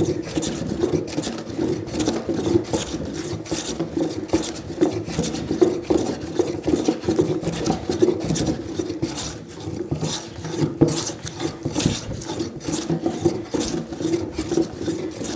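Hand plane shaving across a laminated construction-pine 2x4 benchtop in quick repeated strokes, flattening the ridges between the boards.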